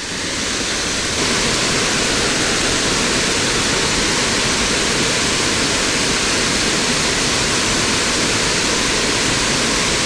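Creek waterfall: a loud, steady rush of falling water that does not change.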